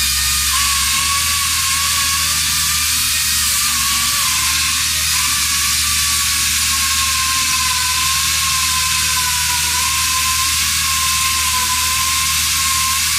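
CS Unitec pneumatic concrete chain saw running while cutting into a concrete wall: a steady loud hiss of the air motor and chain, with a faint whine that sags slightly as the cut goes on.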